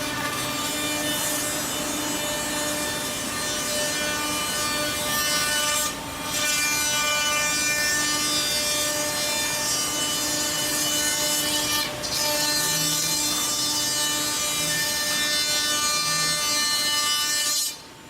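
Router spindle of a two-axis CNC tenon milling machine cutting grooves in wood: a steady whine over the noise of the cut. The cut eases off briefly twice, about six seconds apart, and the cutting stops near the end.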